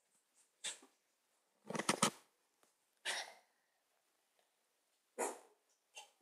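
A dog giving several short barks with pauses of a second or more between them, one of them trailing off into a brief pitched whine.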